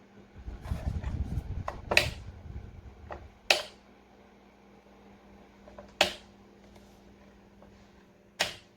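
Four sharp clicks a couple of seconds apart over a faint steady hum, with a low rumbling buffeting during the first two seconds.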